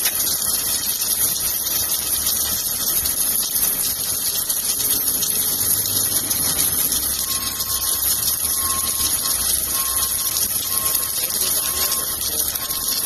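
Steady hissing rush of a submerged arc (SAW) welding job running, with a faint steady whine joining about halfway through.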